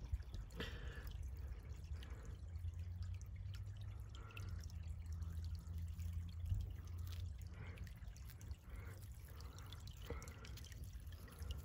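Faint creek water trickling and dripping over stones, under a low steady rumble.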